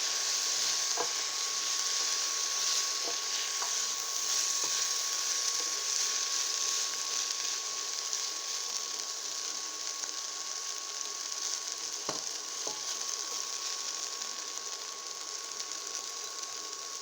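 Sliced green peppers sizzling in a hot pan just deglazed with a splash of water, a steady hiss that slowly dies down as the water cooks off. A few light clicks come through the sizzle.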